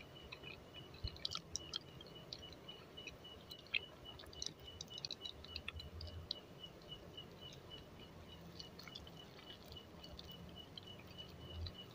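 Quiet chewing of soft dadar gulung (rolled crepe with sweet grated-coconut filling), with small mouth clicks scattered through. A faint high chirp pulses evenly, a few times a second, in the background.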